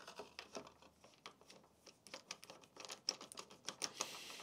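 Faint, irregular small clicks and ticks of a Phillips screwdriver turning a screw into a nut on a motorcycle tablet mount.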